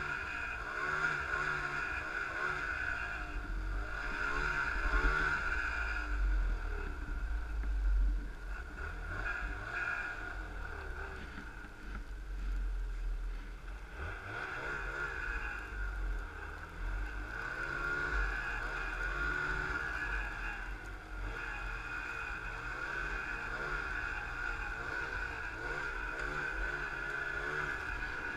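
Snowmobile engine running under load in deep powder, its pitch rising and falling as the throttle is worked, over a steady high whine and a low rumble.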